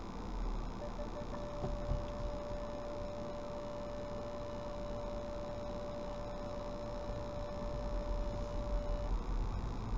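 Parking-sensor warning in a car: a few quick beeps run into one steady high tone lasting about eight seconds, the sign of an obstacle very close, here an oncoming car and the hedge on a narrow lane. The car's engine and road noise rumble low underneath, heard from inside the cabin.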